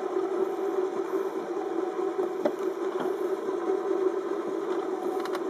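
Summer toboggan running along its stainless-steel trough, a steady even drone, with a couple of light clicks a little past halfway.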